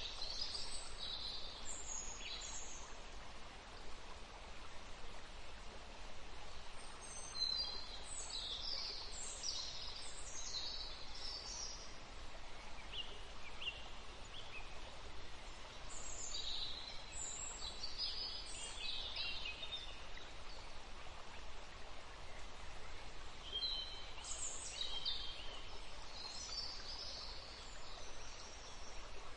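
Nature ambience: birds chirping in short high clusters every several seconds over a steady soft hiss.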